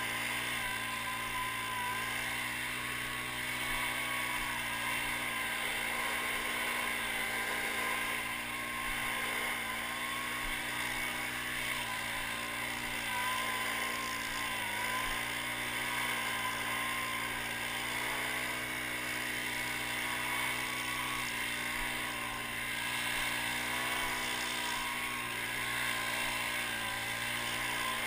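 Handheld leaf blower running steadily at high speed with an air rush, its pitch dipping slightly now and then as it is swung.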